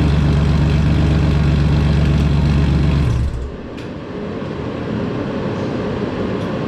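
BMW Z3 M Coupe's straight-six engine running at a steady idle without its rear-mount turbo fitted, then cutting off abruptly about three seconds in, leaving a steady hiss.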